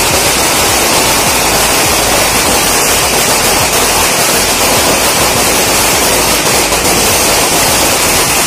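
A long string of firecrackers going off in a dense, unbroken crackle of rapid sharp bangs.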